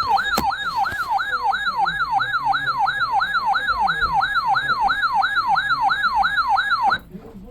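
Siren-like emergency alert attention tone from a broadcast: a single tone that rises quickly and then drops sharply back, about three times a second, announcing a severe thunderstorm warning. It cuts off suddenly about seven seconds in.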